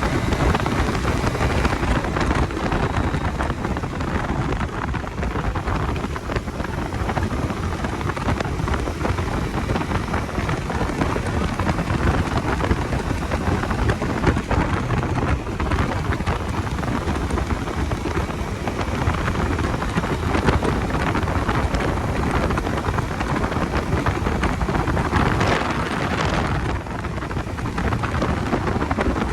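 Steady wind rush and buffeting on the microphone from a moving motorcycle, a loud even rumble with no clear engine note standing out.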